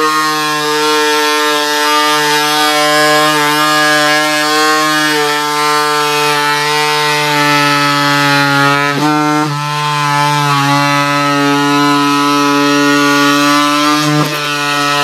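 Cordless electric scissors running nonstop while cutting through cardboard: a steady motor whine that sags briefly in pitch about nine seconds in and again near the end as the blade takes the load.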